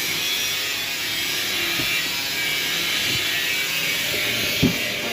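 Tool work noise: a steady hiss with a few short knocks, the loudest about four and a half seconds in.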